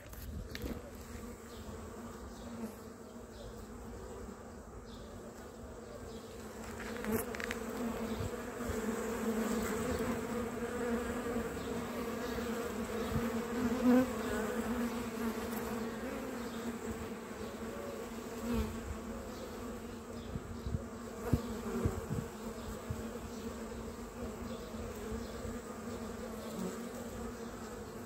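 A swarm of honeybees buzzing, a steady hum of many wings that swells louder about a quarter of the way in and eases a little later. A few brief knocks now and then.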